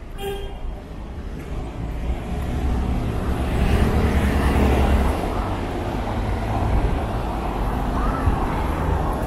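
Street traffic: a motor vehicle passing close by, its deep engine rumble and road noise swelling to a peak about four seconds in, then easing to a lower steady level. A short beep is heard right at the start.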